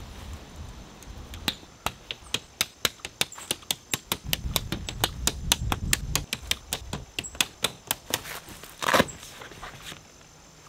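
A fast run of sharp plastic clicks, several a second, as tent clips are snapped onto the dome tent's poles while it is pitched. A louder rustle comes near the end.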